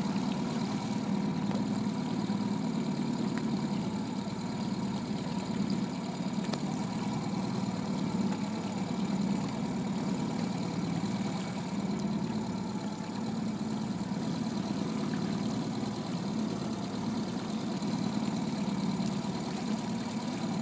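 Small outboard motor running steadily at low speed, with an even, unchanging hum.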